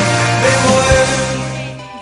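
Rock-style song with a held bass note and a sung melody line, fading out near the end.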